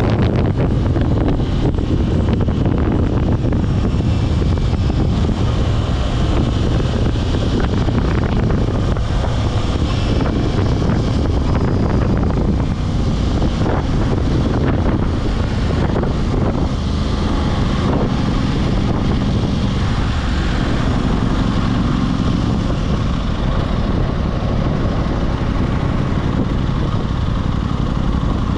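Aprilia RS660 parallel-twin engine running steadily under way, mixed with heavy wind rush on the microphone.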